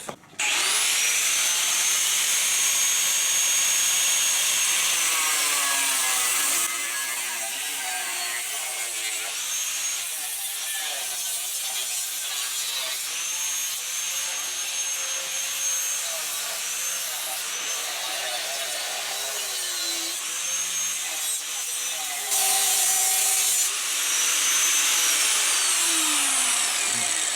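Angle grinder with a cutting disc spinning up and cutting through the metal rear mudguard of a Honda CT110 postie bike, its high whine wavering as the disc loads up in the cut, then winding down near the end.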